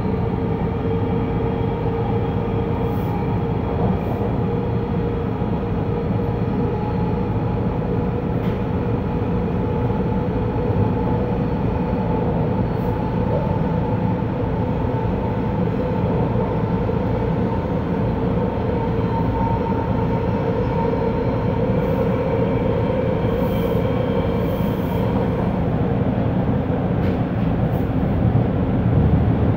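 Bombardier T1 subway train running at speed, heard from inside the car: a steady rumble of wheels on rail with a steady hum of pitched tones over it.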